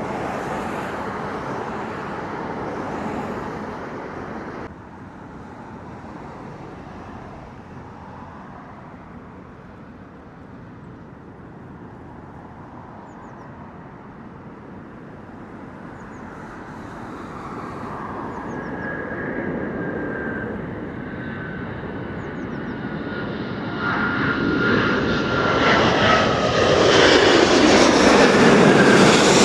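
Airbus A350-1000 jet airliner on final approach, its engine noise growing from faint to a loud pass overhead near the end, with a high whine that slowly falls in pitch as it nears. Before that, the noise of a previous A350 cuts off abruptly about five seconds in.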